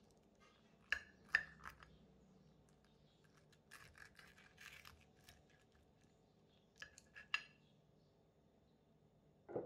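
Knife and fork on a ceramic plate: a few sharp clinks of metal on china, then the knife sawing through crisp fried batter with a light, scratchy crackle, then more clinks and a soft knock near the end.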